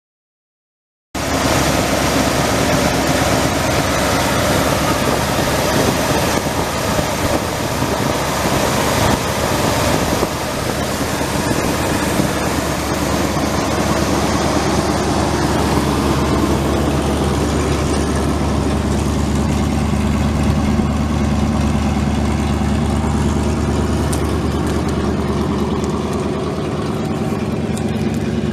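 1978 Ford F250's V8 gasoline engine running, starting abruptly about a second in. The sound is rough and uneven at first, then turns smooth and steady at idle from about ten seconds in.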